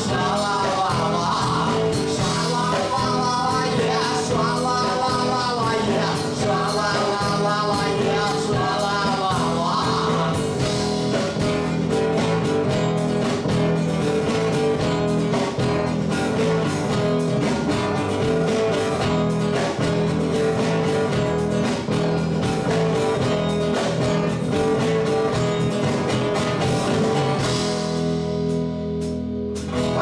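A live rock band with a woman singing over guitar for about the first ten seconds. The band then plays on without vocals, and the music thins out near the end.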